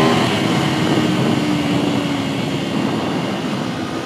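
Aprilia RSV4 RF's V4 engine heard onboard under loud wind rush. At the start the rising engine note breaks off, and a lower note falls slowly as the bike rolls off, fading into the wind noise by about halfway.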